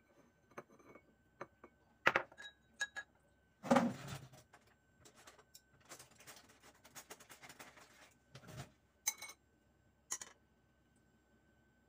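Light clinks and knocks of wooden chopsticks against ceramic bowls as peeled boiled eggs are moved onto bowls of noodles, with a heavier knock about four seconds in and a run of clatter a little later.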